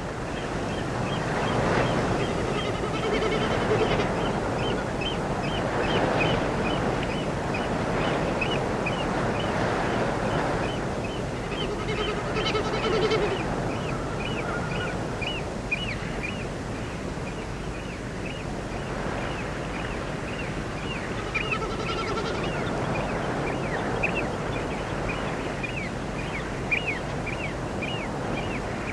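Spring morning outdoor ambience: small birds chirping in quick repeated notes over a steady rushing background like wind or distant water. A lower, longer call from a larger bird comes in twice.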